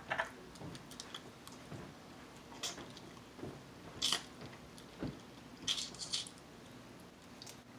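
Close-up eating sounds of crab: about six short, sharp crunches and sucking slurps, a second or two apart, as meat is bitten and sucked from pieces of shell.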